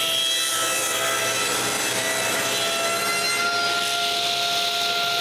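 Power saw cutting through a wooden board: a steady whine over the noise of the cut, growing stronger about two seconds in.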